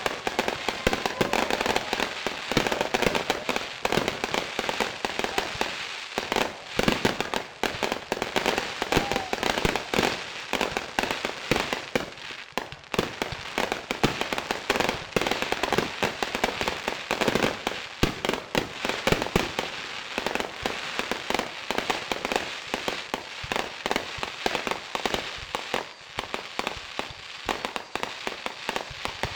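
Fireworks going off in a dense, unbroken run of rapid pops and bangs, many a second, with no pause.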